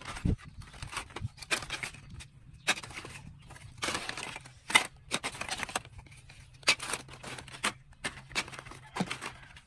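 Plastic phone back covers and metal-and-plastic mid-frames clacking and clicking against one another in irregular handfuls as they are shuffled through, with some brief rustling.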